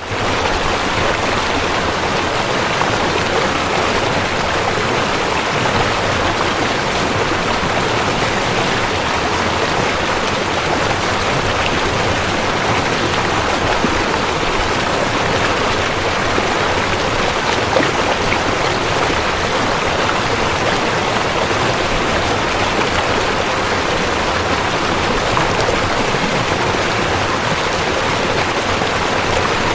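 River water flowing in a steady, continuous rush.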